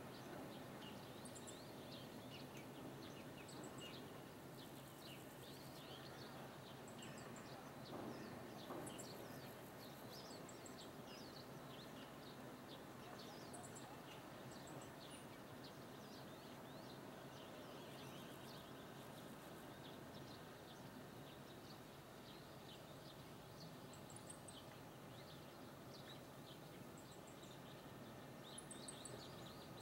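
Faint ambience: a low steady background hiss with many short bird chirps and calls scattered throughout.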